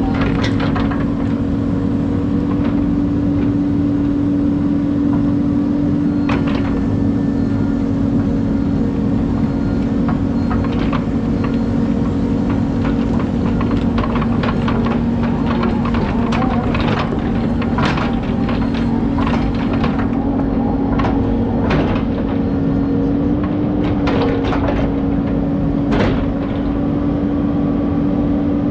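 Excavator's diesel engine running steadily while digging, its hum dipping slightly in pitch midway and coming back up. Scattered sharp clanks and knocks from the bucket and boom working come thickest in the second half.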